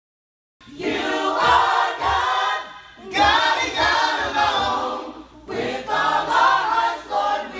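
Choir singing in three phrases, with short breaks between them.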